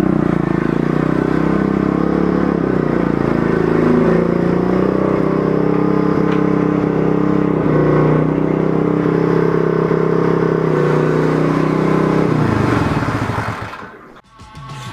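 Pit bike engine running at low, steady speed as it is ridden slowly, then shut off about thirteen seconds in and dying away.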